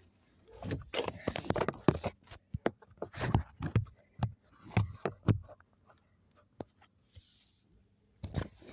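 Handling noise from a phone being moved about and covered by a hand: irregular rubbing, scraping and soft knocks on the microphone. It goes quieter about six seconds in, with a brief hiss a second later, and the handling starts again near the end.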